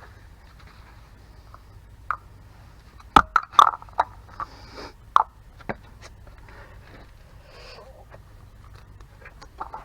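Tools and brake parts being handled during a front rotor and pad change: a handful of sharp clicks and knocks, several in quick succession about three seconds in and a couple more around five seconds, with light scraping between.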